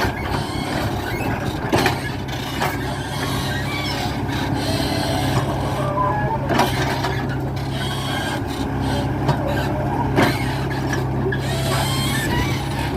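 Excavator's diesel engine running steadily under work, with a few sharp metallic knocks and short squeaks from the machine.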